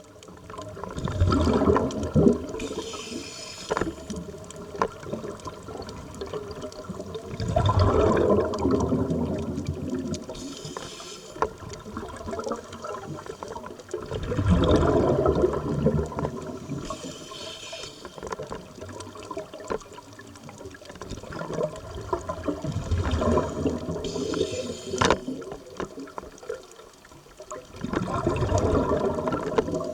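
Scuba diver breathing through a regulator underwater. A bubbling rush of exhaled bubbles comes about every six or seven seconds, five times. Between them the regulator gives a short hiss on each inhale.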